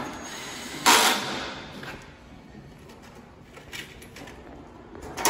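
Knocks and clatter of sheet-metal grill frame parts being handled: one loud knock about a second in that rings away briefly, and a smaller one near the end.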